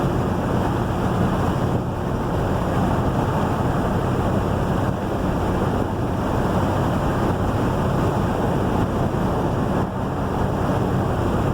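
Steady noise inside a moving vehicle: a low engine hum under an even rush of tyres and wind.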